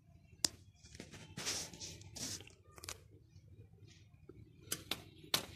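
Handling noise: a few short rustles and a few sharp clicks, with the loudest click near the end.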